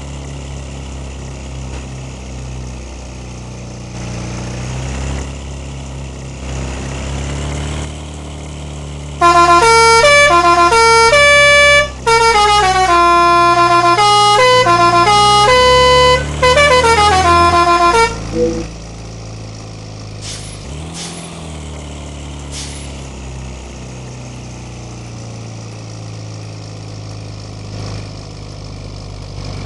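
Indonesian bus 'telolet' musical horn playing a quick tune of changing notes for about nine seconds, with short breaks, over the steady running of the bus's diesel engine. A few short sharp sounds follow soon after the tune ends.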